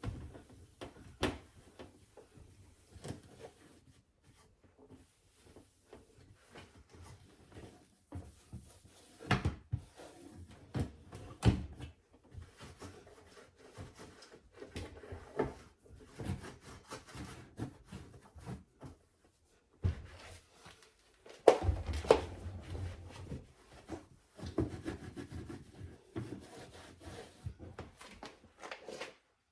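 A cloth rubbing and scrubbing over a dishwasher's surfaces in irregular strokes, with scattered clicks and knocks from handling; the sharpest knocks come about ten, twelve and twenty-two seconds in.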